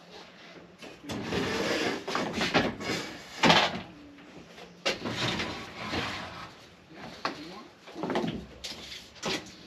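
A wooden board being slid and set on a miter saw's stand: scraping swishes of wood on the stand, with a sharp knock about three and a half seconds in.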